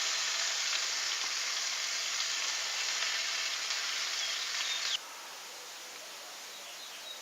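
Chicken pieces sizzling on a hot flat-top grill as they are basted with soy sauce and ginger sauce, a steady hiss. It drops off abruptly about five seconds in to a much fainter hiss.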